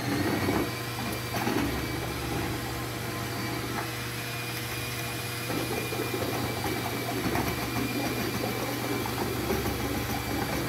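Cordless drill running steadily with a mesh paddle mixer, stirring paint in a plastic five-gallon bucket: an even motor whine over the churning of the paint.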